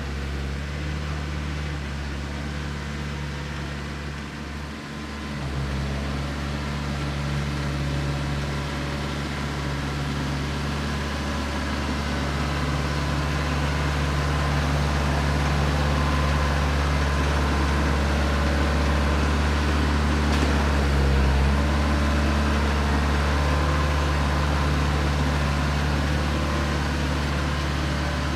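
Branson 4520 tractor's diesel engine running steadily under work, gradually getting louder through the middle as the tractor comes closer.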